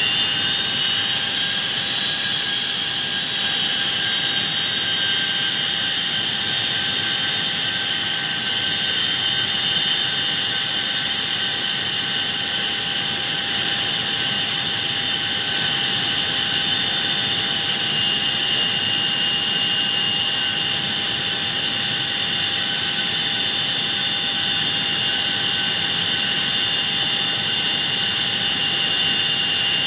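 Gulfstream G150 business jet's Honeywell TFE731 turbofans running on the ground: a steady high whine of several tones over a constant rush of air. The whine rises slightly in the first second or two, then holds steady.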